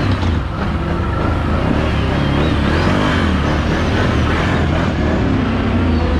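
Can-Am Renegade 1000 ATV's V-twin engine running under load, its revs rising and falling several times.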